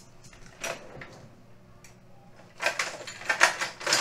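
Handling noise of small hard parts: a faint click about a second in, then a run of quick rattling clicks and clatter near the end.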